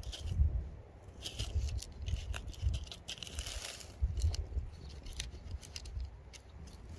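Dry fallen leaves and grass rustling and crackling in short irregular bursts as a cat and a hand move through them, busiest about three seconds in, over a low rumble on the microphone.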